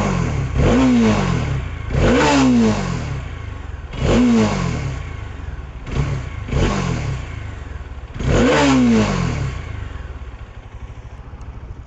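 Bajaj Dominar 400's single-cylinder engine revved in neutral through its stock exhaust: a run of quick throttle blips, each climbing sharply and dropping back toward idle, about every one to two seconds, before it settles back to idle near the end.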